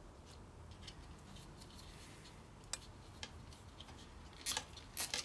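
Faint, scattered clicks and taps of small parts being handled, with two sharper clicks near the end.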